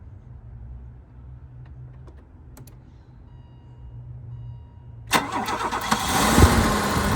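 A faint low hum, then about five seconds in the 1985 BMW 325e E30's 2.7-litre M20 straight-six cranks briefly and fires, settling into a steady idle. It starts easily now that the swapped crankshaft position and speed sensor connectors have been put right, curing the no-spark no-start.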